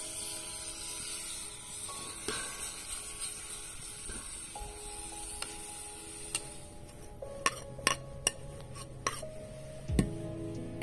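Soft background music with held notes. Over it are a few sharp metallic taps and clinks of cooking utensils in the second half, and a heavier knock near the end.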